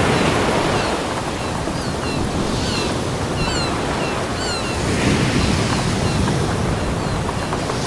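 Ocean waves washing onto a beach: a steady rush of surf, with a wave surging in about five seconds in. A series of short, high, falling chirps sounds over the surf in the middle.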